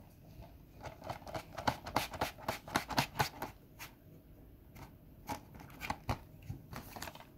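Hands handling a plastic DVD/Blu-ray case: a quick run of clicks and crinkles for about three seconds, then a few scattered clicks.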